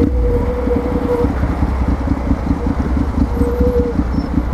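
Ducati Monster 696's air-cooled two-cylinder L-twin engine idling, an even, steady beat of low pulses.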